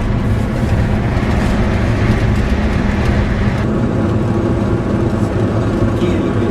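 Steady engine and road noise of a car driving along, heard inside the cabin. The high hiss eases a little past halfway through.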